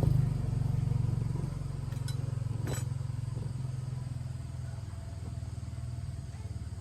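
Light truck's engine running with a steady low pulse, growing gradually quieter. Two short clicks about two and three seconds in.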